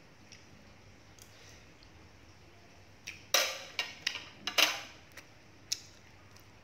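Metal cutlery clinking against a ceramic dinner plate as a spoon is set down: a quick run of sharp clinks and short scrapes about three to five seconds in, then one more clink near the end.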